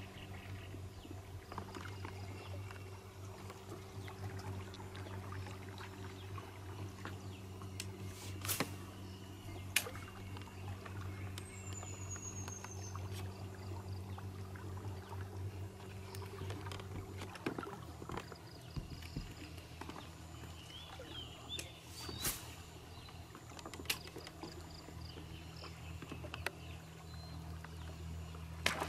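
A small 3.5 cm surface lure sputtering and splashing across the water as it is reeled in, a lure made to make noise that calls fish. Under it runs a steady low hum that drops in pitch about two-thirds of the way through, with a few sharp clicks.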